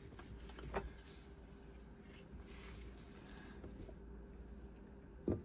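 Faint handling noises at a workbench over a steady low hum, with a light knock just under a second in and a louder knock near the end.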